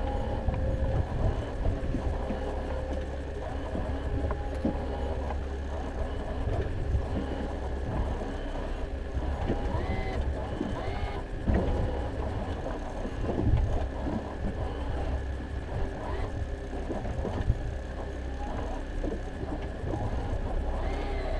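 Fishing boat's motor running steadily at trolling speed, a constant low rumble.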